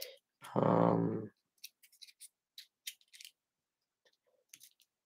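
Faint, light clicks and scratches of a microSD card being handled and slid into a Framework MicroSD expansion card: scattered small ticks over a couple of seconds, with a few more near the end.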